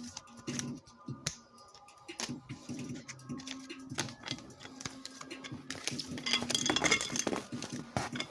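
Trading cards being handled and stacked: a run of light clicks and card taps that gets busier and louder near the end.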